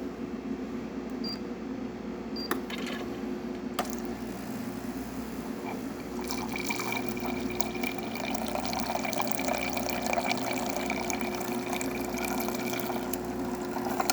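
Gaggia Accademia espresso machine dispensing hot water: water running and splashing over a steady machine hum, with a few clicks in the first seconds. The flow gets louder about six seconds in.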